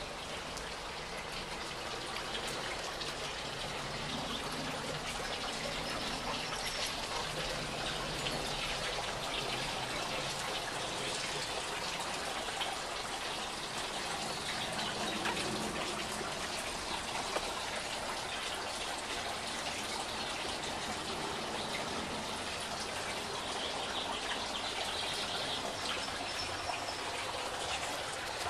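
Pool water trickling and splashing steadily without a break.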